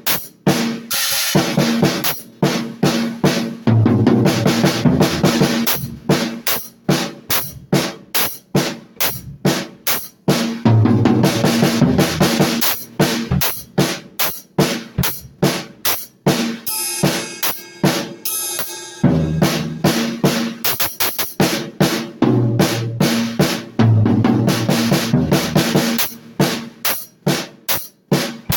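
A drum kit being played: a steady groove of bass drum, snare and cymbals. About two-thirds of the way through comes a brief run of very rapid hits with the bass drum dropping out, before the groove returns.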